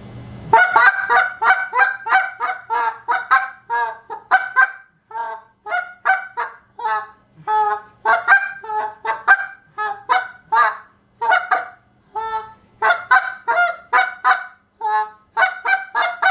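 Goose call blown in a fast, higher-pitched run of clucks and moans, about two notes a second. This is the quick sequence meant to create commotion and turn back geese that flare.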